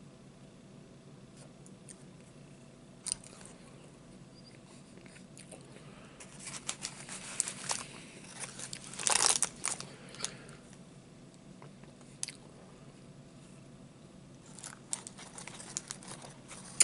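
A person chewing and biting food close to the microphone: crunching and clicking mouth sounds, busiest and loudest in the middle, with a few more near the end.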